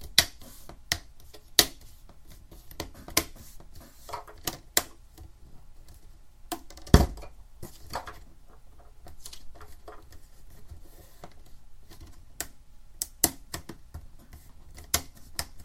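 Plastic screen bezel of a Lenovo ThinkPad T440p being pressed onto the display lid, its latches snapping into place in a series of sharp, irregular clicks. One louder knock comes about seven seconds in.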